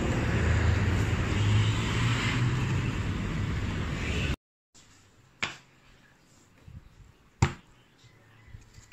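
Steady outdoor street and traffic noise with a low rumble, which cuts off abruptly about four seconds in. A quiet room follows, with two sharp knocks about two seconds apart and a few fainter taps.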